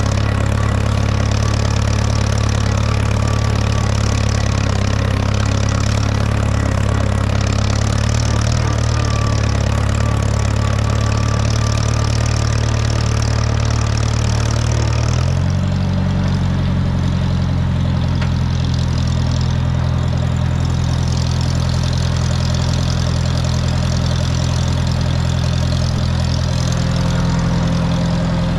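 Allis-Chalmers Model D road grader's engine running steadily, its note changing about halfway through.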